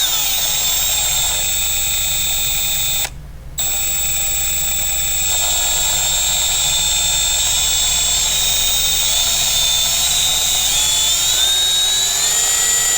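Milwaukee M12 Fuel 3/8" right angle impact wrench (2564-20) running free with no load on speed setting 1, its brushless motor giving a steady high whine. The trigger is let go for a moment about three seconds in, and near the end the pitch wavers as the variable-speed trigger is feathered.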